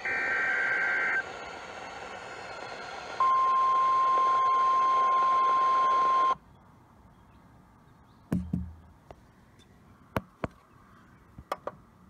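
Weather radio receiver sounding a required weekly test: the end of a buzzy SAME digital data burst, a couple of seconds of static, then a steady alert tone just above 1 kHz held for about three seconds that cuts off suddenly. A few sharp clicks and a thump follow as the radio is handled.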